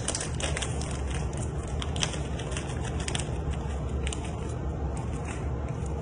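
Snack bag packaging crinkling and rustling as it is handled, a run of quick irregular crackles over a steady low hum.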